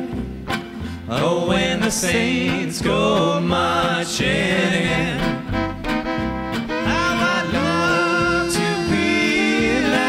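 Live gypsy jazz band music: acoustic guitars and upright bass keeping a swing rhythm under a violin.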